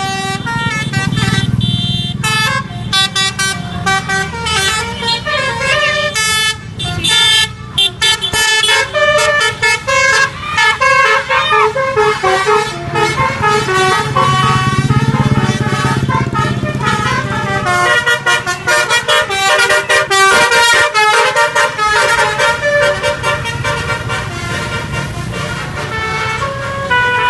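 Bus's basuri 'telolet' musical air horn playing a rapid tune of short stepped notes over the low rumble of the engine.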